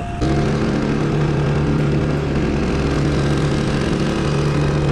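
Small 2 hp water-jet outboard motor (EXECT Poseidon ZXV4000) running under way, a steady buzzing note whose strength wavers slightly. The jet's intake is sucking in fine air bubbles, so the load drops and the engine speed won't hold steady.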